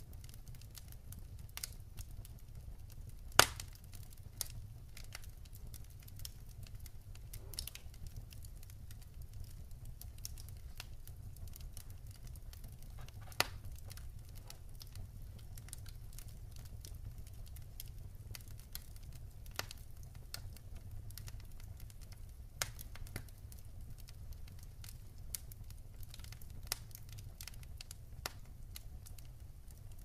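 Wood logs burning in a fireplace: irregular sharp crackles and pops over a low, steady rumble, the loudest pop about three and a half seconds in.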